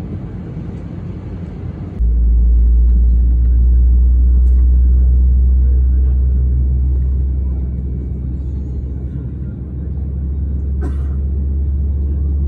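Airbus A320 cabin rumble while the jet taxis, heard from a window seat over the wing. About two seconds in it jumps abruptly to a much louder, deep steady drone, and there is one brief click near the end.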